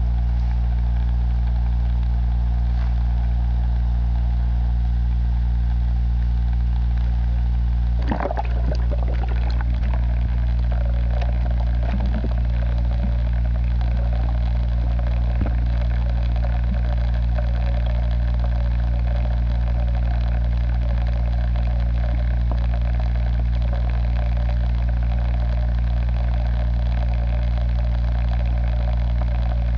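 A steady low mechanical hum, with a brief knock about eight seconds in.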